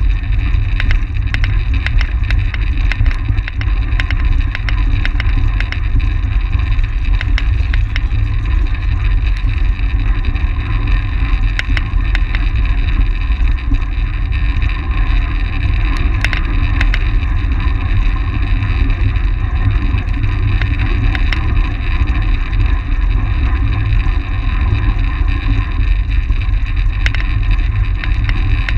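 Wind buffeting an action camera's microphone on a track bike racing at speed: a loud, steady low rumble, with scattered sharp clicks.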